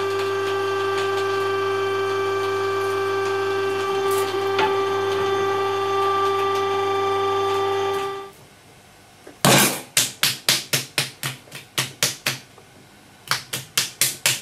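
Electric clay pug mill running with a steady, whining hum. After about eight seconds it gives way to hands slapping a lump of clay on a potter's wheel head: sharp slaps, about two to three a second, with a short pause near the end.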